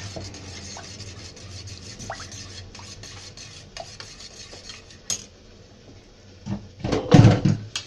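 Spoon clinking and scraping against a bowl as a milk mixture is stirred: scattered light clinks, then a louder clatter a little before the end.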